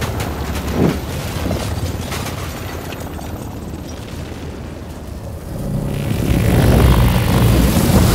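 Film sound design of a destroyed street: a deep rumble with a thud of debris about a second in, dying away over the next few seconds. It swells up loud again in the last couple of seconds.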